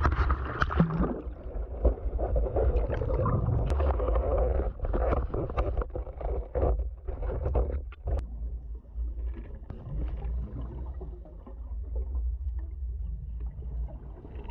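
Boat under way on a single motor, off plane: a steady low engine rumble with water rushing and splashing against the hull.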